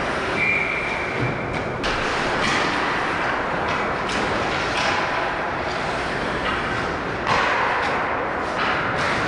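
Ice hockey play heard from rinkside: skates scraping the ice and sticks clattering, with several sharp knocks of puck and stick impacts.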